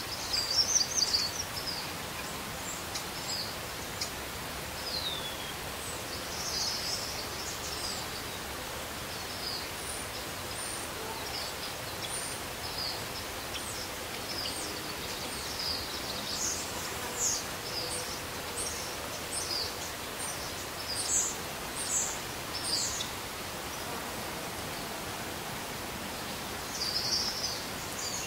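Outdoor forest ambience: many short, high bird chirps scattered over a steady background hiss, some in quick clusters and one gliding downward.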